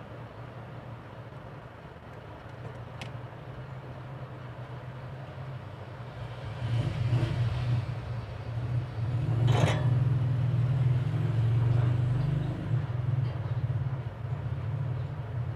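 Low, steady engine rumble that swells for several seconds in the middle and eases off near the end, with a single sharp click a few seconds in.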